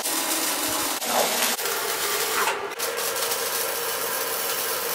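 Hobart MIG wire-feed welder arc crackling and sizzling steadily as a bead is laid, with a couple of brief breaks in the arc.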